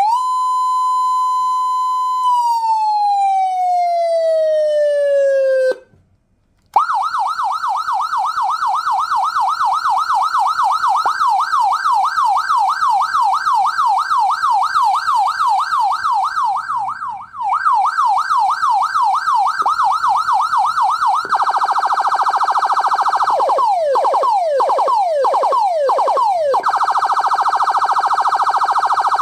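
A 200-watt electronic siren sounding through its speaker and switching between tones. First comes one long sweep that rises, holds and slowly falls. After a brief gap it plays a fast repeating yelp of about three sweeps a second. About two-thirds of the way through it switches to a much faster warble, broken by a few quick falling sweeps.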